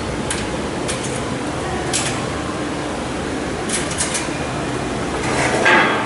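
Sharp metallic clicks and taps as a screw and square nut are fitted by hand into a steel rack rail to hold a patch panel, over a steady background hiss. A short scraping rustle comes near the end.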